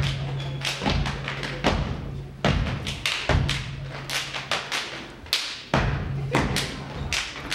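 A step team stepping: sneaker stomps on the stage floor mixed with hand claps and body slaps, sharp hits in an uneven rhythm at about two strong beats a second.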